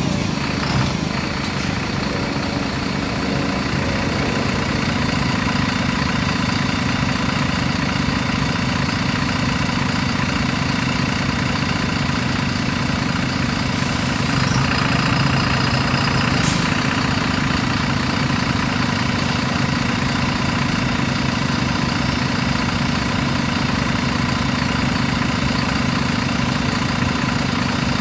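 The MAN D0836 inline-six diesel of a Youngman JNP6120GR city bus idling steadily, heard from outside the bus. About halfway through come a brief hiss and, a couple of seconds later, a short sharp hiss.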